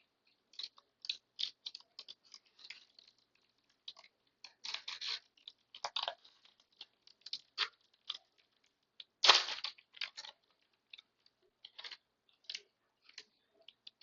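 Baseball trading cards and their packaging being handled: irregular short crackles, rustles and snaps, the loudest a longer rustle about nine seconds in.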